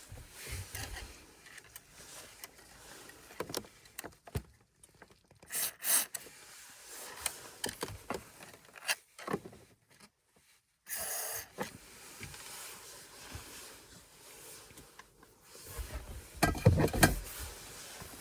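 Scattered clicks, rustles and scrapes of hands working at a Volkswagen Touareg's centre console trim where it meets the dash, applying dry lubricant to stop a creak. There are a few louder knocks near the end.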